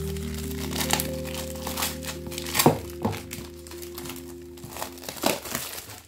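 Plastic shrink-wrap film crinkling in irregular sharp crackles as it is pulled off a manga volume, over steady background music.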